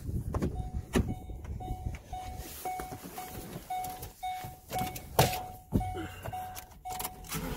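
A truck's cabin warning chime beeping over and over, about two short beeps a second. A few clunks and knocks from the driver getting in and handling the cab sound over it, the loudest about five seconds in.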